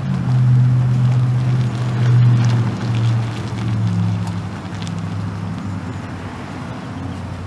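Pickup truck's 5.4-litre gas engine running. It gets louder about half a second in, swells twice in the next few seconds, then settles back down.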